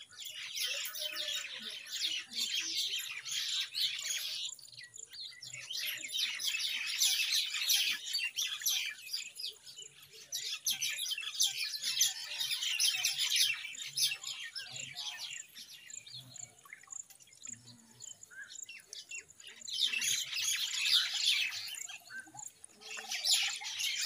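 Young myna's rapid, harsh high-pitched chirping calls, coming in several bouts of a few seconds each with short pauses between.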